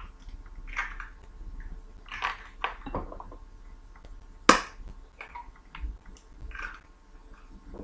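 Eggs being cracked by hand into a plastic mixing bowl: scattered small cracks and crackles of eggshell, with one sharp knock about halfway through.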